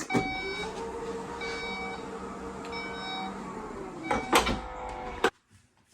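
A small electric motor runs with a steady hum for about four seconds, winding up at the start and down at the end, while a short electronic beep sounds three times at even spacing; a few clicks or knocks follow near the end.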